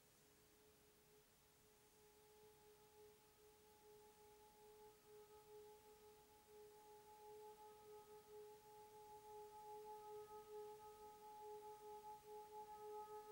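Tibetan singing bowl rubbed around its rim with a mallet: a quiet, steady singing tone that slowly swells in volume with a gentle wavering, higher overtones joining in during the second half.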